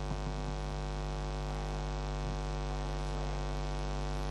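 Steady electrical mains hum with many overtones.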